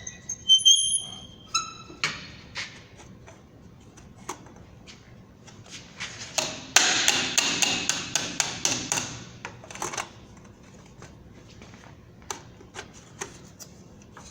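Hammer striking sheet metal, folding the edge of a sheet-metal bottom over a rim clamped to a bench to crimp the two together. A ringing metallic ping comes just after the start, then single taps, and about halfway through a quick run of strikes.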